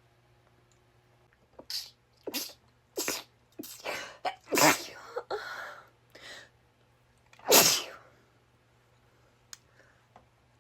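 A woman sneezing repeatedly: after a quiet start, a run of short, sharp sneezes and catching breaths begins about a second and a half in. The loudest sneeze comes near eight seconds in.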